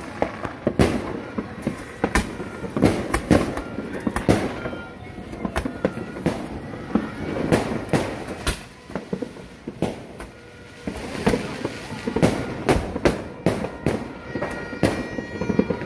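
Fireworks going off: a dense, irregular run of sharp bangs and crackling pops, easing off briefly past the middle before picking up again.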